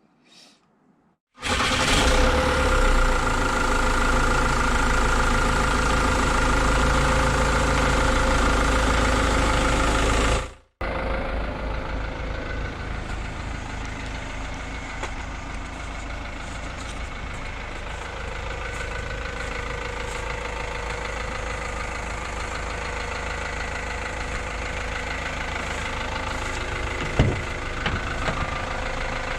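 An engine running steadily, louder at first, then cut off abruptly about ten seconds in and followed by a quieter steady engine sound with a fine low pulsing.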